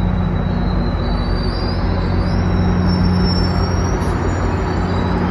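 GO Transit diesel commuter train running, a steady low engine drone with thin high wheel squeals on the rails that waver in pitch.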